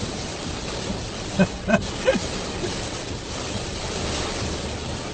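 Steady noise of cyclone wind and heavy rain heard from inside a moving car. Three short snatches of a voice come between about a second and a half and two seconds in.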